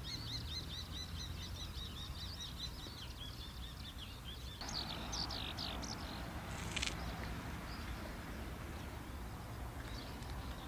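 A small bird calling in a quick series of high chirps, about five a second, over a steady low rumble. The chirps stop about halfway through, after a few louder ones.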